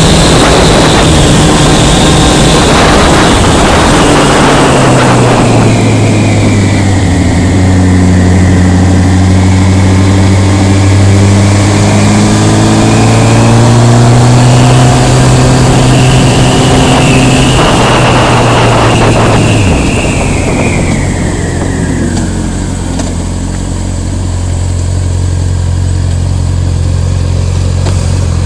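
Motorcycle engine heard from the rider's seat, its note rising and falling with the throttle while riding, with two short surges of rushing noise. About two-thirds of the way through the note drops and settles into a steady low tick-over as the bike slows down.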